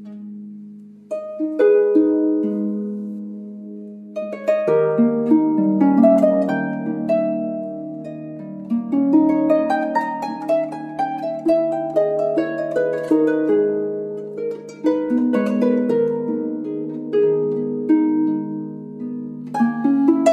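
Background music of plucked string notes, sparse at first and fuller from about four seconds in.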